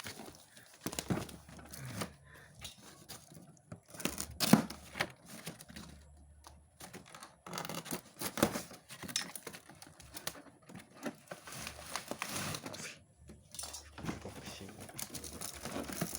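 Packaging being torn open and handled, with irregular tearing, rustling and crinkling and a sharp knock about four and a half seconds in.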